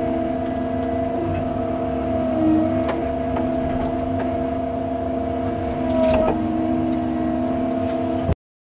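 Cat 309 CR mini excavator running steadily under work, its engine and hydraulics giving a steady hum with a few light knocks. The sound cuts off suddenly just before the end.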